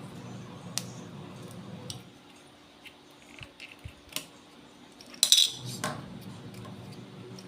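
Light clicks and the clatter of small hard parts being handled, with a louder clatter about five seconds in, as the Fluke 8024A multimeter's case and internal parts are taken apart. A low hum stops about two seconds in.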